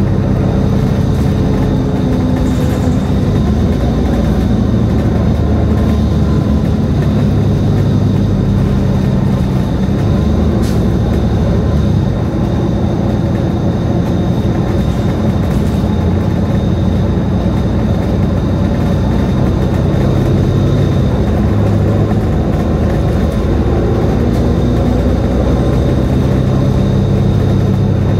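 Nova Bus LFS city bus under way, its engine running and tyres and road noise filling the cabin, with a steady high whine over the low engine note.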